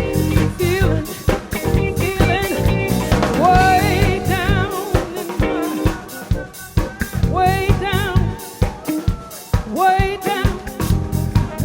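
Background soul-funk music: a drum-kit beat with snare and bass drum under a wavering melodic line.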